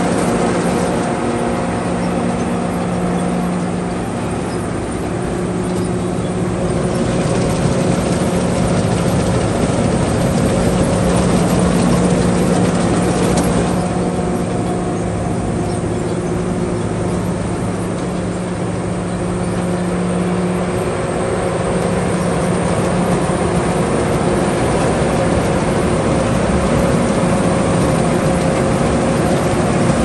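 Tracked rice combine harvester running steadily as it cuts rice: a continuous engine drone with a steady low hum, mixed with the noise of the header and threshing machinery.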